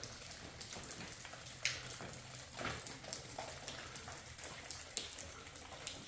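Water dripping from wet rock: scattered single drops at uneven intervals.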